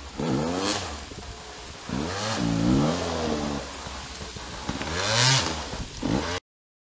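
Enduro dirt bike engines revved hard under load in repeated bursts, pitch rising and falling, as the bikes struggle up a steep muddy slope. The sound cuts off suddenly near the end.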